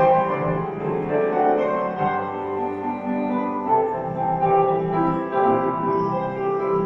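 Instrumental interlude of a song: keyboard accompaniment playing melody and chords, with no singing.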